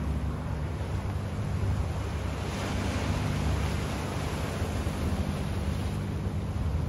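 Small waves washing against a rocky shoreline, with one wash swelling about two and a half seconds in, over a steady low rumble.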